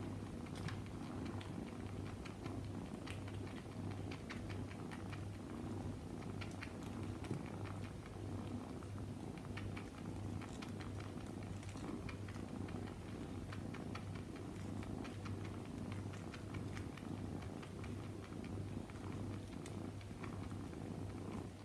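Young kitten purring steadily while suckling on a fluffy toy, the purr pulsing about twice a second, with many small sucking clicks.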